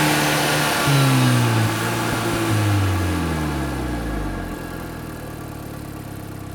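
MK5 Volkswagen Golf GTI's turbocharged 2.0-litre four-cylinder through a Cobra turbo-back decat exhaust, revving sharply at the start and again about a second in. Its pitch and loudness then fall away over the next few seconds, settling to a low steady engine sound.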